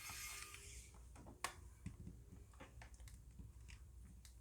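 Near silence with a few faint, light clicks and taps from a Nintendo 3DS's plastic shell and small screws being handled during disassembly; the sharpest click comes about a second and a half in.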